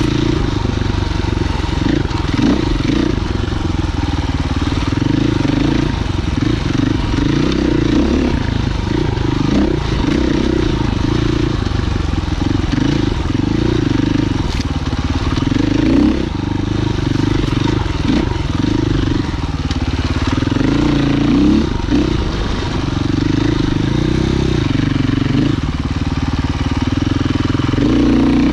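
Husqvarna FE 501's single-cylinder four-stroke engine running hard on a trail ride, its note rising and falling continuously with the throttle.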